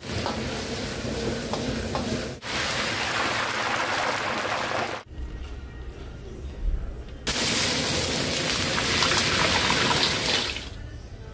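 Kitchen cooking noise: a steady, watery hiss that changes abruptly every few seconds. A quieter, rumbling stretch comes just before the middle, and the loudest, brightest hiss follows just past halfway and fades near the end.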